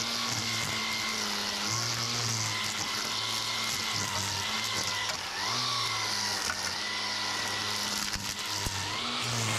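Toro 60-volt cordless string trimmer running at speed as its line cuts grass and weeds along patio pavers, its whine dipping briefly in pitch a few times as the line bogs under load. Background music with a bass line plays underneath.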